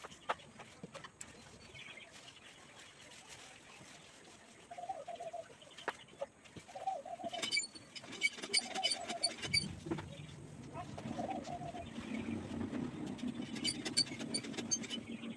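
A dove cooing, four short low coos about two seconds apart. Runs of light clinks come in between, and a low steady rumble joins about two-thirds in.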